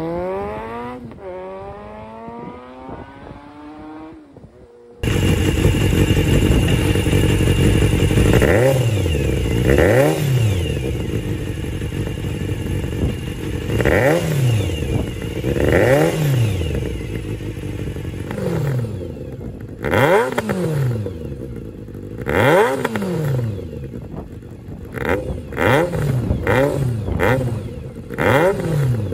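Kawasaki Zephyr χ's air-cooled inline-four through an RPM 4-into-1 aftermarket exhaust. The revs die away in the first few seconds; then the engine idles and is revved in repeated throttle blips, a few seconds apart at first and in quicker, shorter blips near the end.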